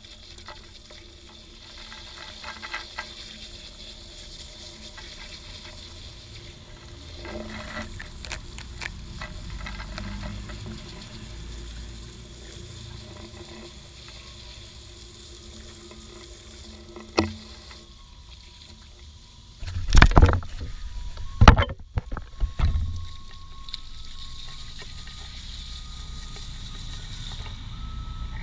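Bike chain being washed by hand in a container of kerosene: liquid sloshing and stirring with scattered small clicks, and two loud knocks about twenty seconds in.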